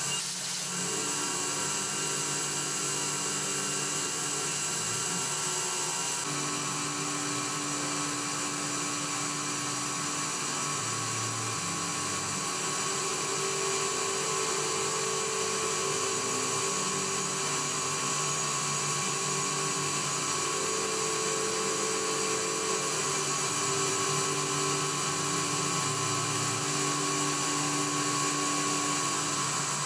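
CNC milling machine's end mill cutting an aluminium block: a steady high spindle whine with cutting noise, and lower tones that come and go. The sound changes about six seconds in, and from there on it is a light climb-milling finish pass.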